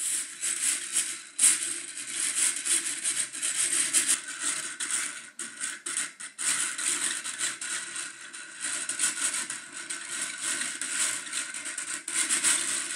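Plastic gear train of a ball-on-beam balancing machine driven by a small DC motor: gears whirring and rattling with many small clicks. The level keeps rising and falling as the motor corrects the beam's tilt.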